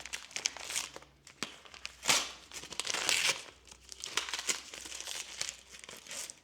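Gift wrapping being crinkled and torn open by hand as a small present is unwrapped. Irregular crackling runs throughout, with louder tearing rips about two and three seconds in.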